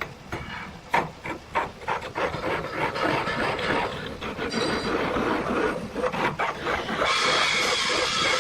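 Irregular scraping and rubbing with sharp taps, growing into a denser, steadier scraping noise about seven seconds in.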